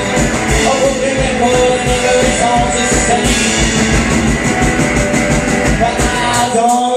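Live rock band playing loudly, with electric guitar, drums and bass, between sung lines. Near the end the band briefly drops out to a sparser break.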